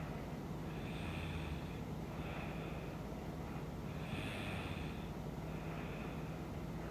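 A woman snoring in her sleep: two slow breath cycles about three seconds apart, each a rasping snoring inhale followed by a softer breathy exhale. A steady low hum runs underneath.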